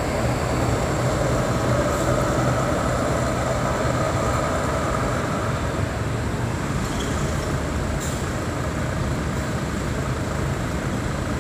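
Large coach bus's diesel engine running steadily as the bus pulls away, its sound easing slightly as it moves off.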